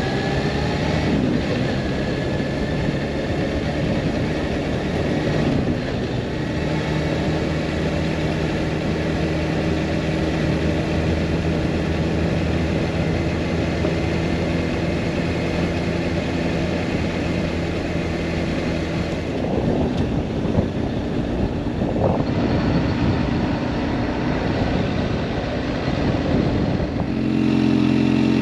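Kawasaki H2 SX's supercharged engine running at a steady road speed, mixed with wind rush. Near the end it settles to a steady idle as the bike stops.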